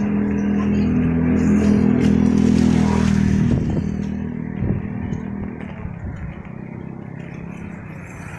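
A motor vehicle's engine running with a steady hum, loudest in the first half and fading away after about four seconds.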